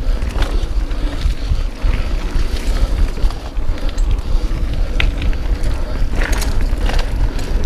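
Mountain bike ridden fast down a dirt singletrack: wind rushing over the camera microphone and tyres rolling on the trail, with scattered knocks from bumps.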